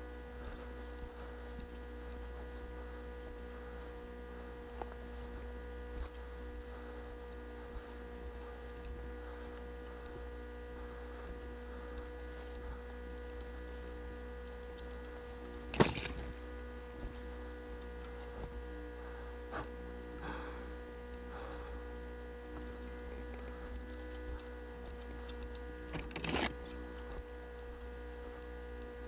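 Steady electrical hum made of several constant tones, broken by sharp clicks: the loudest about sixteen seconds in and another about twenty-six seconds in.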